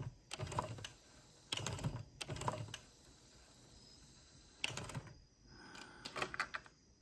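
Short runs of light, sharp clicks and taps in four bursts, with quiet between them.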